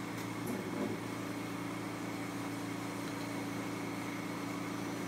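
Steady electric machine hum with several steady tones from a core drill running, its bit spinning just above the rock before it makes contact. A faint knock comes near the start as the wooden splash guard is set in place.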